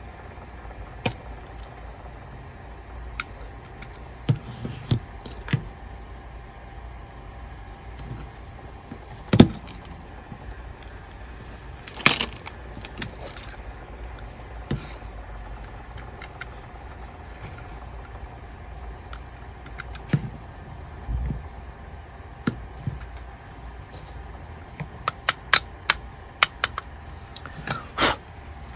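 Scattered small clicks and taps of metal and plastic parts as the trigger group of a Krytac Maxim 9 gas blowback airsoft pistol is handled and taken apart by hand, with a quick run of clicks near the end, over a steady background hum.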